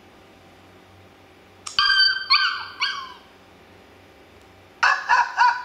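Recorded dog yelps played through a tablet's speaker from a dog-sounds soundboard app. A click is followed by three high, whining yelps that drop in pitch at their ends, about two seconds in, and then three quick, high yips near the end.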